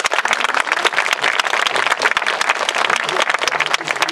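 Crowd applauding: a dense run of many hands clapping at once, thinning out near the end.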